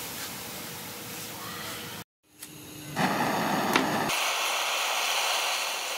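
Water spraying from a homemade PVC-pipe sprinkler, a steady hiss. After a short cut, a butane canister torch is heard: a sharp click, then the torch flame hissing steadily and louder.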